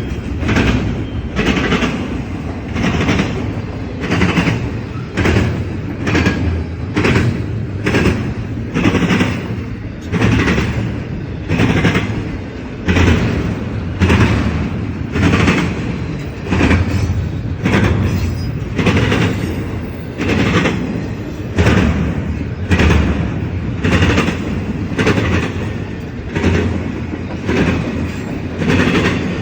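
Freight train cars rolling past with a steady rumble, their wheels clacking over rail joints in a regular rhythm of about one and a half knocks a second.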